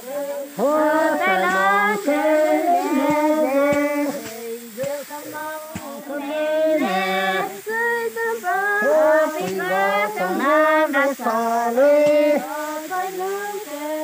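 Female voices singing a song in phrases, with short breaks between lines.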